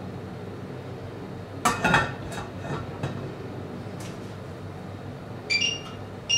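Dark blue enamelled cast-iron lid set down onto a stainless steel steamer pot, a sharp clatter and rattle of lid on metal about two seconds in, followed by a few lighter knocks. Near the end come two short, high ringing tones.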